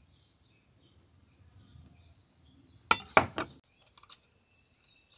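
A steady high chorus of insects, broken about three seconds in by three sharp knocks: a kitchen knife cutting through small fruit onto a wooden chopping board.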